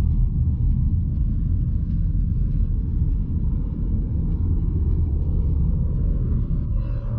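A car driving along a road: a steady, low road-and-engine rumble.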